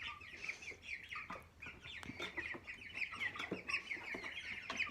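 A flock of young broiler chickens peeping and clucking: many short high calls overlapping without a break, with a few faint clicks among them.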